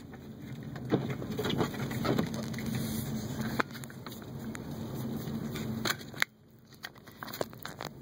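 Cabin noise of a 2012 Subaru WRX driving on snow, a steady low engine and road hum, overlaid with repeated clicks, rubs and knocks from the camera being handled. The hum drops away abruptly about six seconds in and partly returns near the end.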